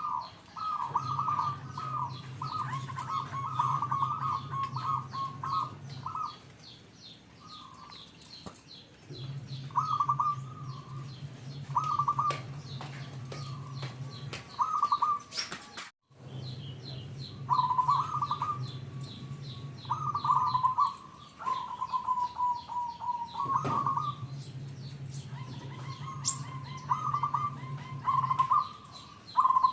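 Zebra dove (perkutut) cooing: clusters of rapid, staccato coo phrases repeated again and again, with fainter, higher chirping of small birds behind. The sound cuts out for an instant about halfway through.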